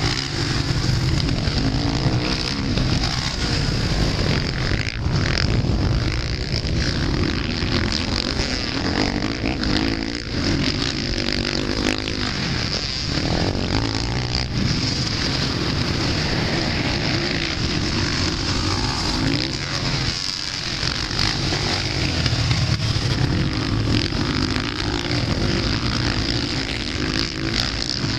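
Several motocross bikes racing on a dirt track, their engines revving up and easing off over and over as they take the jumps and bends.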